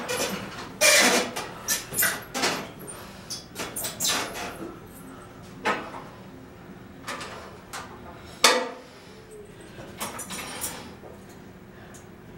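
Irregular metallic clanks, knocks and clicks from a home gym machine as it is handled between exercises. The loudest knocks come about a second in and again about two-thirds of the way through, and they thin out toward the end.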